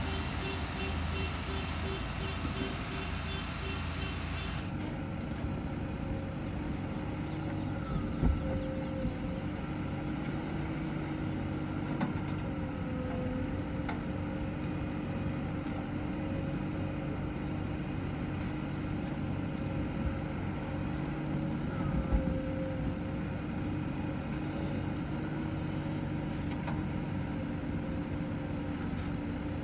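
Heavy diesel engine running steadily, with a few short knocks. A fast, even pulsing in the first few seconds cuts off abruptly.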